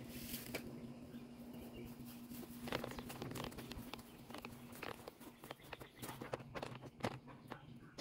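Footsteps on grass with the knocks and rustling of a hand-held camera being moved, starting about three seconds in. Under them a low steady hum that stops about five seconds in.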